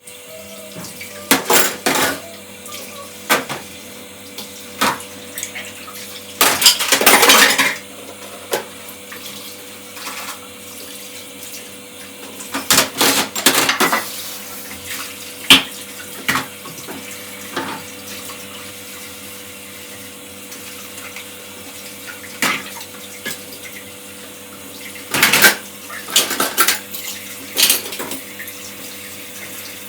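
Dishes and cutlery clattering, with water running from a tap at times; louder bouts of clatter come at several points.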